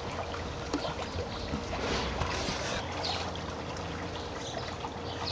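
Above-ground pool's filter pump running with a steady low hum, with water trickling.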